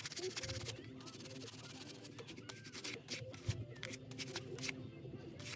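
Canvas rag rubbing along the edge of a thick veg-tan leather sheath in quick repeated strokes, burnishing (slicking) the dyed edge.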